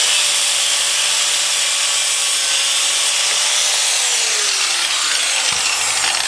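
High-speed power tool cutting through a rusty steel power steering line: a steady, loud whine with a grinding hiss. About four seconds in the whine falls in pitch as the tool slows.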